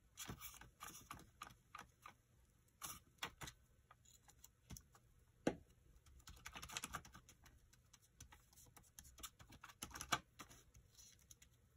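Quiet handling of paper: a glue stick rubbed on kraft paper, then hands pressing and smoothing the glued envelope down on a cutting mat, with scattered light taps and rustles. A sharper click comes about five and a half seconds in.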